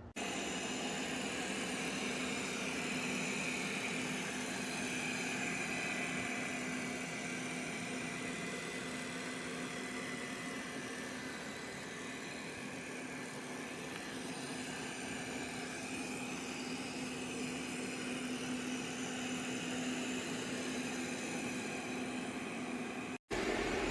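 Steady machine hum with a constant low drone and a hiss over it, typical of a motor running at an even speed. It cuts off abruptly near the end.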